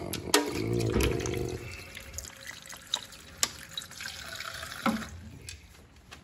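Water from a kitchen tap running into a mesh strainer and metal pot in a stainless steel sink, splashing, strongest in the first second or so, with a few sharp knocks. The water stops about five seconds in.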